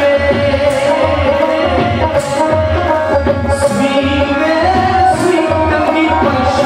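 Live Punjabi folk music for a jhumar dance: a dhol drum beating a steady rhythm under a held melody line that slides in pitch.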